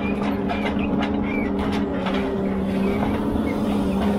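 Ponsse Elephant forwarder's diesel engine running at a steady, even pitch while the machine works its crane.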